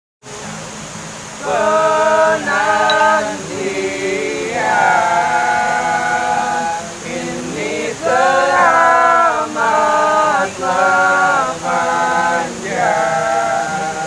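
Several young men singing a song together, their voices in held, sliding phrases, rising to full voice about a second and a half in.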